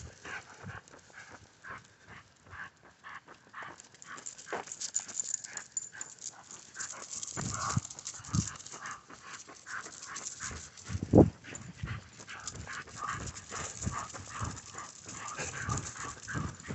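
Two leashed dogs panting as they pull along a sidewalk, with scuffing and rustling from the walker's steps and jacket and a few dull knocks, the loudest about eleven seconds in.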